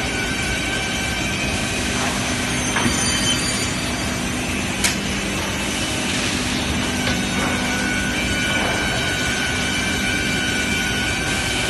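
SK3200 NC panel sizing saw (CNC beam saw) running: a steady machine hum with a few constant whining tones, and one sharp click about five seconds in.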